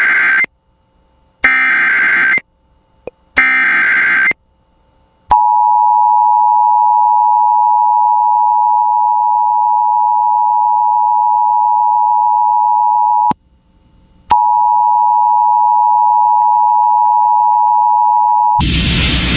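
Emergency Alert System broadcast tones: three one-second bursts of warbling SAME digital header data, then the steady two-tone EAS attention signal (853 and 960 Hz together) for about eight seconds, a one-second break, and about four seconds more. Near the end a louder, noisier broadcast sound cuts in as the alert's audio begins.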